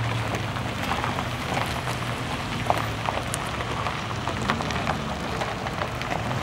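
Slow-moving SUVs: engines running with a steady low hum under many small crackles of tyres rolling over gravel.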